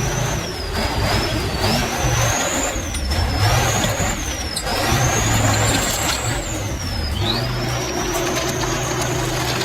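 K700 tractor's diesel engine revving hard under load, with a high whine that rises and falls several times as the revs surge and drop.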